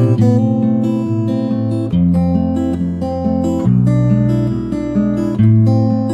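Background music: strummed guitar chords, changing chord every couple of seconds.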